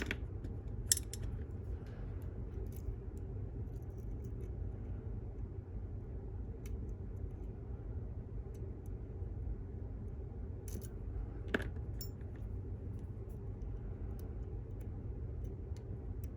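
Small metallic clicks and ticks from picking an Abus GDS disc-detainer padlock, the pick turning the discs one by one. The clicks come scattered, with a few sharper ones about a second in and around eleven seconds, over a steady low hum.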